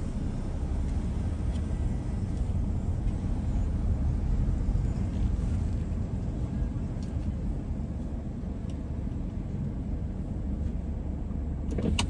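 Steady low rumble of a car's engine and tyres heard from inside the cabin as the car creeps forward, with a brief knock near the end.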